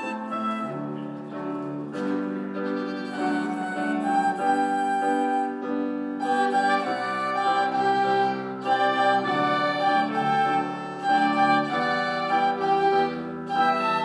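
Small ensemble of grand piano, flute, violin and a small handheld wind instrument playing a piece together, with sustained melodic lines over piano accompaniment.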